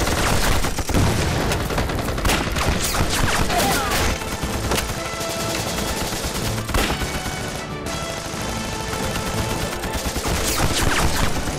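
Gun battle: rifle and machine-gun fire with shots crowding on one another without a break, over background music.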